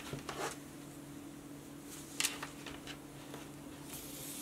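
Faint rustling and scraping of nylon 550 paracord being handled and pulled through a gap in a woven collar, with a few short scrapes, over a steady low hum.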